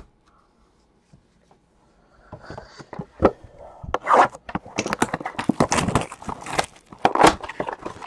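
Plastic shrink wrap on a trading-card box being cut open and pulled off, crinkling and crackling. It starts about two seconds in and gets louder and denser towards the end. A single sharp knock comes at the very start.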